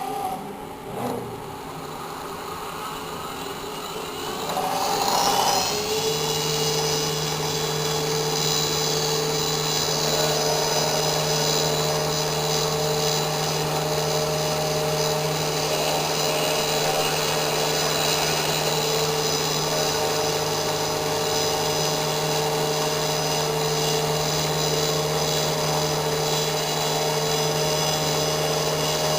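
CNC engraving machine starting up about five seconds in, then running steadily with a constant hum and a high whine.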